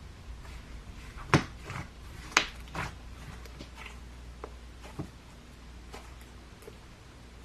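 Slime being handled and mixed, giving a few short sharp clicks and pops, the two loudest about one and a half and two and a half seconds in, over a low steady hum.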